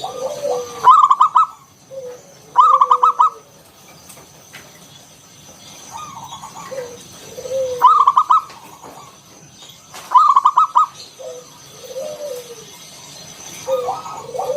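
Zebra dove (perkutut) of a local wild strain singing. Its phrases of low coos each lead into a short run of quick, louder, higher stuttering notes, and four such loud runs come every few seconds.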